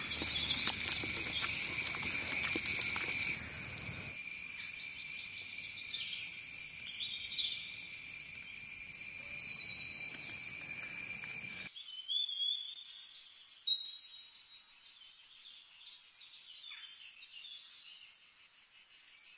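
Forest insects shrilling steadily in several high-pitched bands, with a few brief chirps over them. In the last stretch a single pulsing insect call, several pulses a second, carries on alone.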